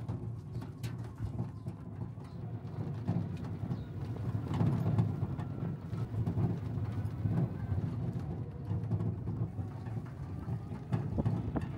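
Low, steady rumble of a small cargo vehicle on the move, with scattered knocks and rattles.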